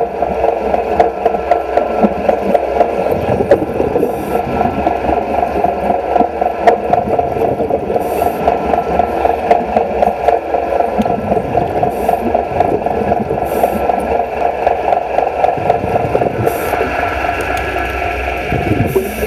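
Underwater wet stick welding on a steel pile: the arc crackles and buzzes steadily through the water, with a short hiss of bubbles about every four seconds.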